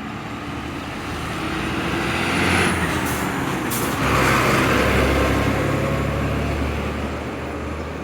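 Road traffic with a large vehicle's engine running, swelling louder from about two seconds in and easing off near the end, with two brief hisses around three seconds in.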